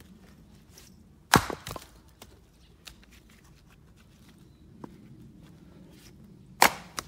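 Axe chopping black locust firewood on a chopping block: two sharp chops about five seconds apart, each followed by a few smaller knocks.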